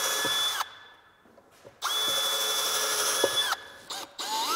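Cordless drill driving screws through a metal bracket into a heavy timber stair tread. It runs at a steady speed and stops shortly after the start, then runs again for about a second and a half. A couple of short bursts follow, and it spins up once more near the end.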